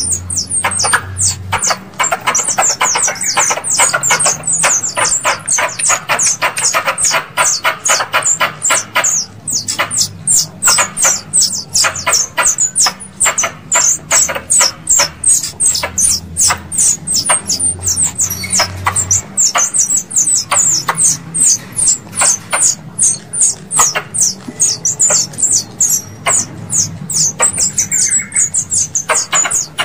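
Squirrel lure call: a squirrel's chattering call of short, sharp, high chirps repeated steadily, about two to three a second, played to draw squirrels in.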